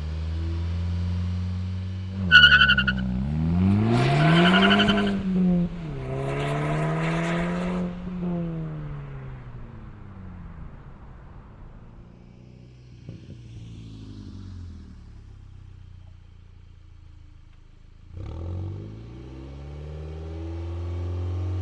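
Volkswagen MK6 GTI's turbocharged 2.0-litre four-cylinder running through its exhaust and being revved. There are several quick rev blips in the first eight seconds, then a quieter, settled stretch, and the revs rise again near the end.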